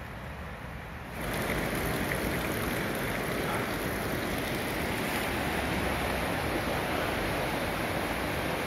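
River Usk in flood, fast water rushing steadily; the rushing jumps louder about a second in.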